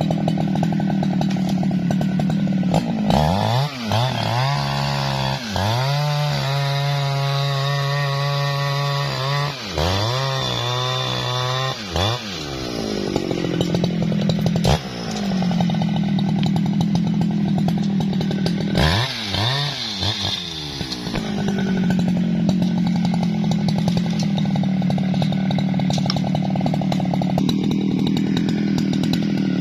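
Jonsered chainsaw running while bucking a felled tree trunk, its revs swinging up and down three times between stretches of steady running.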